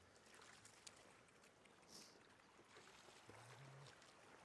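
Very faint splashing of fish wriggling in shallow muddy water, with a soft splash about two seconds in.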